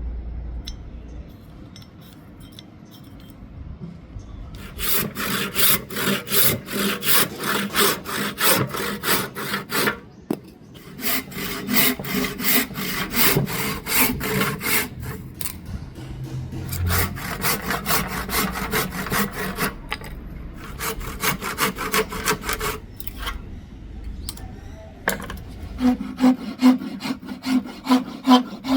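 Hand saw cutting hardwood in quick back-and-forth strokes, about three or four a second. The strokes start a few seconds in and come in several runs with short breaks.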